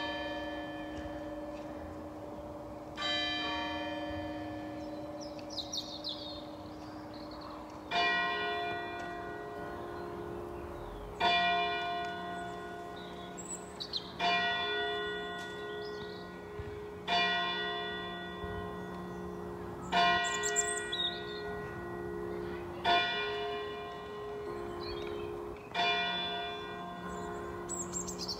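Church tower clock striking the hour. Two strokes on a higher bell come first. From about eight seconds in, a lower hour bell is struck seven times, about every three seconds, each stroke ringing on into the next. Birds chirp faintly between the strokes.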